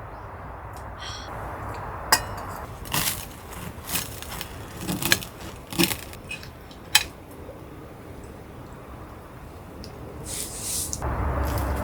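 Metal cookware and utensils clinking and scraping: a handful of sharp clinks and knocks between about two and seven seconds in, over a steady background noise that grows louder near the end.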